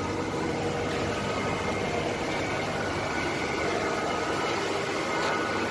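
Steady drone of running machinery, a constant noise with a few faint steady tones in it.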